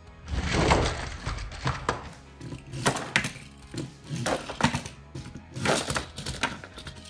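Background music over repeated clattering knocks of plastic K'nex toy monster trucks landing on a tabletop and cardboard ramps and crashing into each other.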